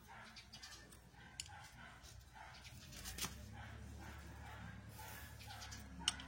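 An animal's faint short cries, repeating about twice a second, over a steady low hum, with a few sharp clicks; the loudest click comes near the end.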